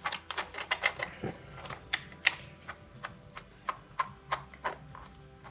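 Irregular light clicks and taps of small hard objects being handled, several a second at uneven spacing.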